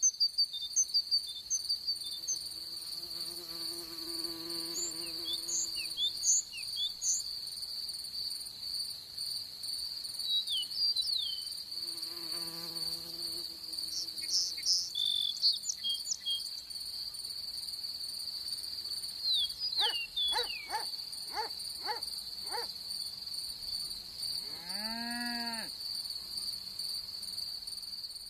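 Grassland insect soundscape: a steady high cricket trill throughout, with scattered short high chirps and two flies buzzing past. Near the end come a quick run of clicks and a buzzy sound that rises and falls in pitch.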